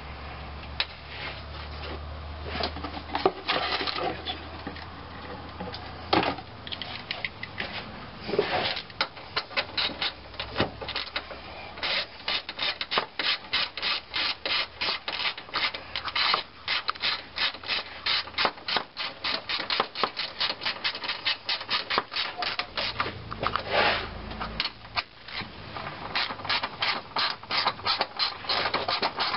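Hand ratchet clicking in fast repeated strokes as small fan shroud bolts are run in, steady from about twelve seconds in, after some scattered knocks of parts being handled.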